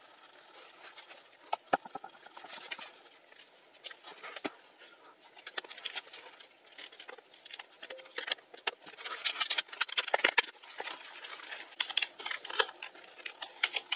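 Scattered plastic clicks and taps, then runs of rapid key presses in the second half: the reassembled Dell RT7D20 rubber-dome keyboard being typed on to test it.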